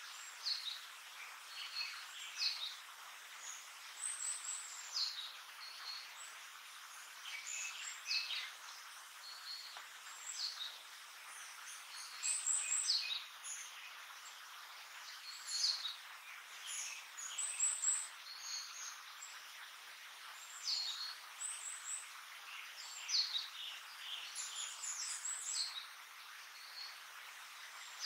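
Blue-and-white flycatcher fledgling calling: short, high notes that sweep downward, repeated at irregular intervals and at times several close together, over a faint steady forest hiss.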